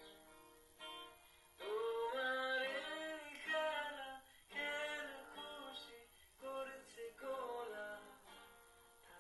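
A man singing a Bengali song to his own acoustic guitar. The voice comes in about a second and a half in, in sung phrases with short breaks, over the guitar.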